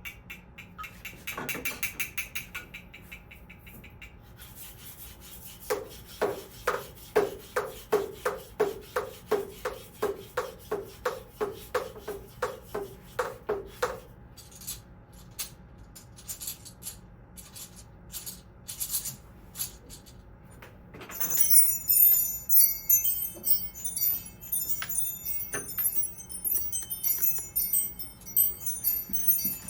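Live sound effects played on small percussion instruments and everyday objects: a run of even knocks, about three a second, then a spell of high chimes and jingling bells.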